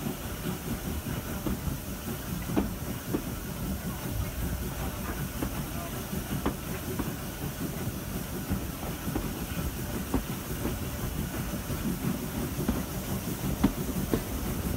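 Steam-hauled train running along the line, heard from an open carriage window: a continuous low rumble of wheels on rail with a steady hiss, and occasional sharp clicks from the wheels over the track.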